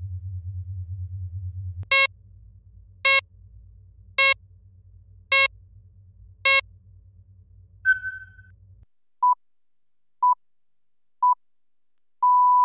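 Synthesized app interface sounds over a low electronic hum: five short, loud buzzy alert tones about a second apart, then a brief higher chime. After that comes a countdown of three short beeps a second apart and a longer final beep, cueing the start of a voice recording.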